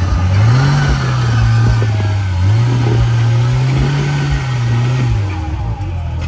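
Off-road side-by-side's engine pulling on the trail. The throttle rises twice, about half a second in and again around two and a half seconds, each time held, and the engine eases back near the end. Short knocks from the ride over rough ground come through.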